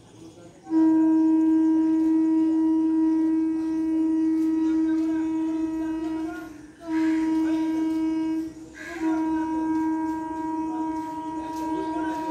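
Air horn of an electric multiple unit local train, sounding one steady pitch in repeated blasts: a long blast of about six seconds, a shorter one of about a second and a half, then another held blast. It is a train signalling its approach to the station.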